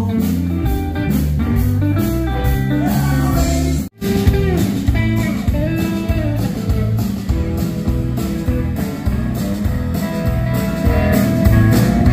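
Live band playing blues-rock on electric guitars, bass guitar and drums, with singing. The sound cuts out for an instant about four seconds in.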